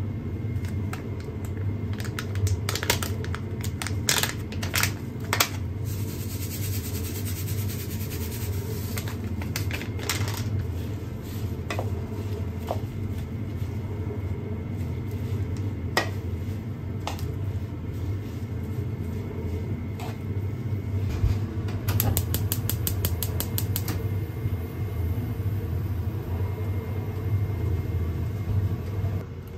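Salad leaves tossed with tongs in a wooden bowl: scattered clicks and light rustling over a steady low hum. A quick, rapid run of clicks comes about three-quarters of the way through.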